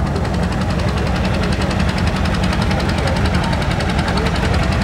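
Antique John Deere two-cylinder tractor engine working hard under load while pulling a weight-transfer sled, its exhaust popping in a steady rhythm.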